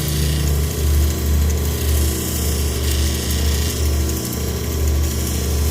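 Lapidary cabbing machine running, its motor giving a steady low hum that swells and dips, while an opal is held against a diamond grinding wheel with a light hissing rub.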